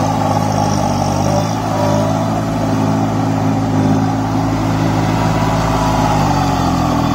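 Kubota 21 hp mini tractor's diesel engine running steadily under load while it drives a rotavator puddling a flooded paddy field. Near the end the engine note sags briefly and then picks back up.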